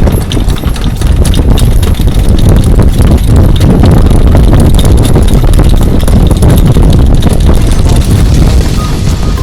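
Loud, steady wind buffeting the microphone, a dense low rumble with constant crackling gusts.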